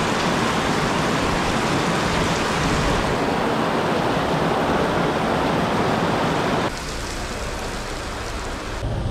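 Heavy rain pouring onto a paved street, a dense steady rush of downpour. About two-thirds of the way through it cuts abruptly to quieter, lighter rain.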